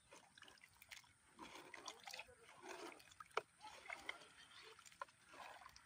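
A metal spoon stirring chicken in thick gravy in a metal cooking pot: faint wet sloshing with scrapes and small clinks against the pot, one sharper clink about halfway through.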